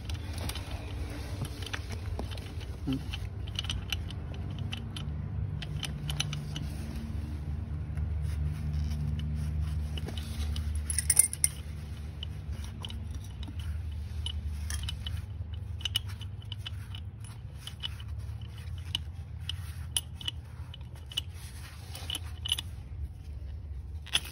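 Scattered metal clicks and clinks from the steel handle clamp of an exothermic-welding mold as it is worked and opened after the weld, the loudest about eleven seconds in, over a steady low rumble.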